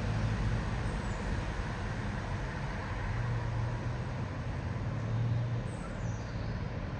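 Jet engines of a Boeing 777-200ER airliner climbing overhead: a steady low rumble.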